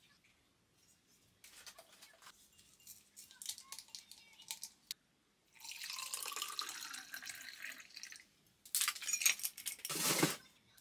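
An iced drink being made in a tall drinking glass. A spoon ticks against the glass as drink powder is stirred in, then liquid is poured in with a steady hiss for a couple of seconds. Near the end, ice cubes clatter loudly into the glass.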